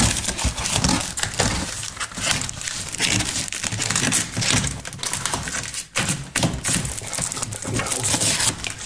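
A cardboard parcel wrapped in brown packing tape being cut and torn open by hand: packing tape and cardboard crackle and crinkle continuously, with many small sharp cracks.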